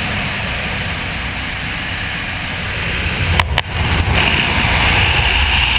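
Small high-wing plane's engine droning steadily, heard from inside the cabin with rushing wind noise, while it climbs for a skydive. The rushing grows louder about four seconds in, with a brief click and dropout just before.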